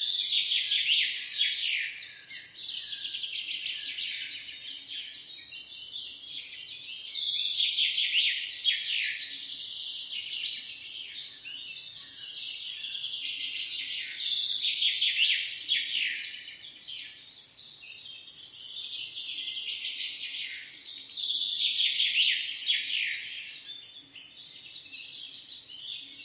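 Dense chorus of small songbirds chirping and twittering rapidly, swelling and fading in waves about every seven seconds.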